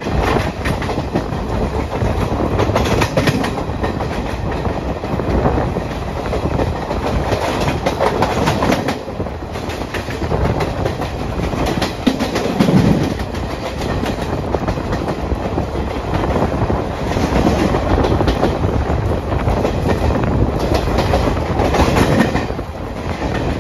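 A Garib Rath Express train with old ICF coaches running along the track: loud, steady noise of the coach wheels on the rails, with some irregular knocks.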